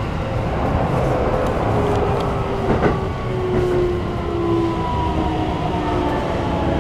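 Keikyu New 1000 series train's Toyo IGBT-VVVF inverter and traction motors whining in slowly falling tones as the train brakes into a station, over the steady rumble of wheels on rail, heard from inside the car. A single sharp click about three seconds in.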